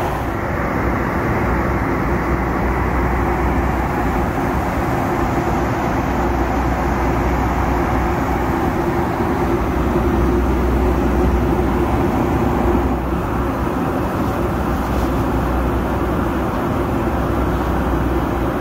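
Steady cabin noise inside a Boeing 757 airliner: an even, low rush of airflow and engines with a steady low hum beneath.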